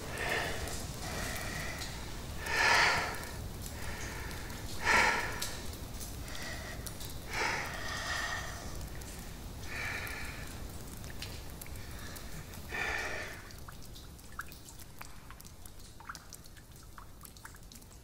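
A person's breathy sobs, one every two to three seconds, stopping after about 13 seconds. After that come faint scattered drips.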